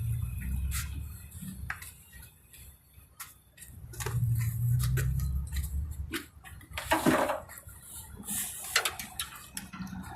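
Scattered light clicks and clinks of hand tools being handled, with stretches of low rumble in the background.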